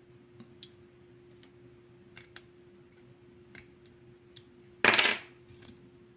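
Light metallic clicks of a Leatherman Charge multitool being handled, with one loud, short metal snap about five seconds in as a folding tool snaps into place, then a smaller click.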